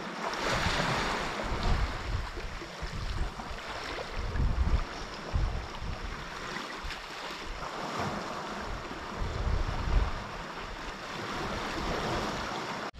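Small sea waves lapping and washing around shallow rocks and seaweed, with gusty wind buffeting the microphone in uneven low rumbles.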